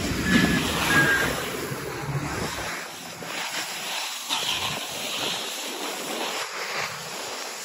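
Wind rushing over the microphone while riding down a ski slope, with the hiss and scrape of the rider's edges sliding over packed snow. Heavy low buffeting in the first couple of seconds, then a lighter, swelling rush.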